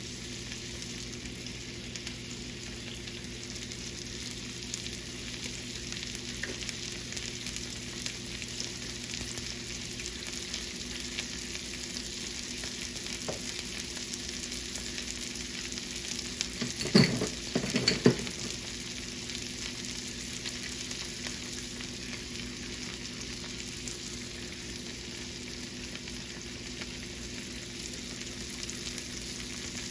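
Crappie and bluegill fillets and green beans frying in butter over a layer of oil in a cast-iron skillet: a steady crackling sizzle. A brief clatter of a few sharp knocks just past halfway is the loudest moment.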